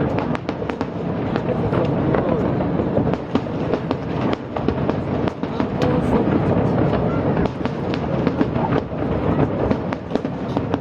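Fireworks display: shells bursting in quick, continuous succession, a dense run of bangs and crackles over a steady rumble.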